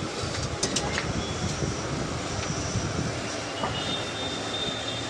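Steady workshop background noise, a low rumble with a few sharp clicks of handled parts about half a second to a second in.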